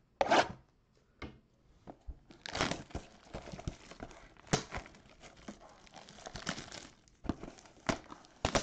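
Plastic shrink wrap crinkling and tearing as a sealed cardboard trading-card box is unwrapped by hand. The crinkling comes in irregular bursts with sharp clicks, the loudest just after the start.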